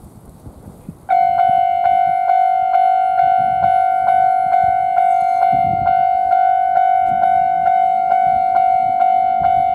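Japanese railway level-crossing warning bell starting up about a second in. It rings steadily, a bright clanging tone struck a little over twice a second, the signal that a train is approaching the crossing.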